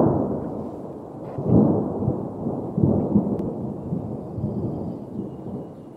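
Thunder rumbling: a loud peal at the start that fades, swells again about one and a half and three seconds in, then dies away.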